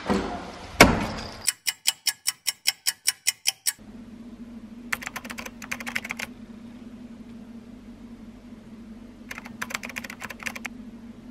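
Typing on a computer keyboard in two short bursts of rapid key clicks over a steady low hum. Before them come some clattering and a run of about a dozen evenly spaced sharp clicks.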